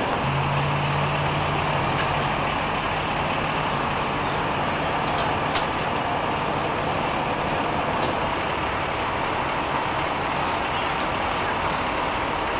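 Steady roadway traffic noise with a low, even engine hum through the first half that fades out about six seconds in, and a few faint clicks.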